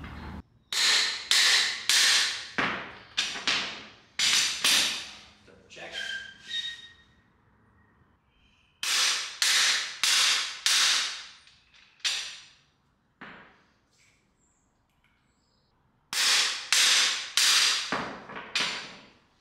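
Hammer blows on the end of a cam bearing installer's steel driver bar, driving a new cam bearing into the cam bore of an L9H V8 block. Sharp metallic strikes with a short ring come in bursts of several, about two a second, with pauses between the bursts.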